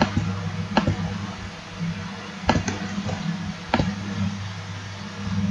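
Computer mouse clicks, four sharp isolated clicks spaced a second or so apart, over a steady low hum.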